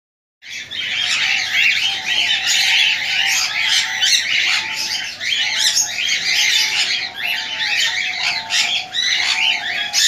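Many caged birds calling at once, a continuous busy chatter of high chirps and squawks, starting about half a second in. Beneath it runs a lower, repeated wavering call.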